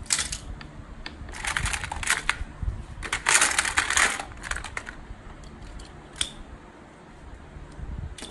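Plastic and die-cast toy cars clattering against each other in a plastic basket as a hand rummages through them, in several bursts, loudest about three to four seconds in, with a single sharp click about six seconds in.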